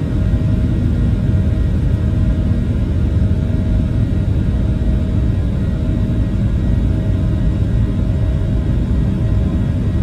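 Boeing 737-800's CFM56 turbofan engines heard from inside the cabin: a loud, steady low rumble with a faint steady hum above it.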